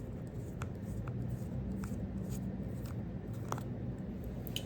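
Small Torx screws being backed out of a Buck Spitfire folding knife with a driver: faint, scattered light clicks, about six in all, over a low steady hum.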